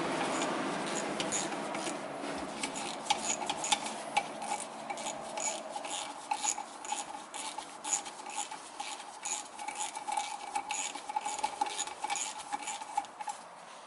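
Ratchet wrench on a long extension clicking a few times a second while unscrewing the last housing bolt of an electric coolant pump.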